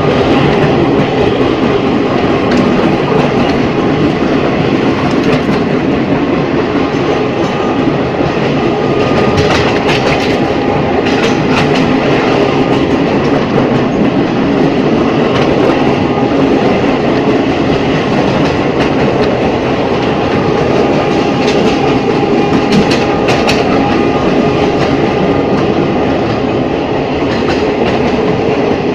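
Ex-JR 203 series electric multiple unit running along the track at steady speed: a continuous rumble of wheels on rail with a faint steady whine. A few sharp rail clicks come about a third of the way in and again about four fifths of the way through.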